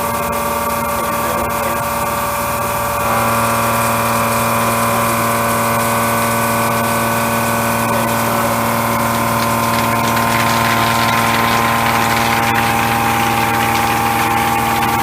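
Ceratizit MaxiMill A491 indexable milling cutter milling A36 steel: a steady multi-tone machining whine that steps louder about three seconds in, with a rougher cutting hiss joining from about ten seconds in.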